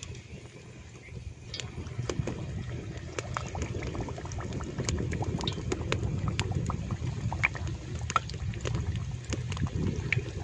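Flour-coated chicken pieces going into hot oil, frying with a dense sizzle and crackle that starts about a second and a half in and grows louder as more pieces are added.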